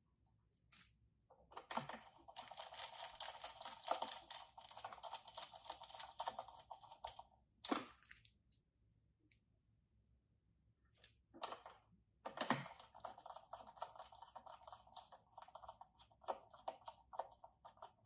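Small screwdriver and stiff hookup wires being worked at a door controller's screw terminal block while the 12 V power leads go in: quiet, dense fine clicking and scratching in two stretches. A pause of about three seconds separates them, with a single sharper tap just before and just after the pause.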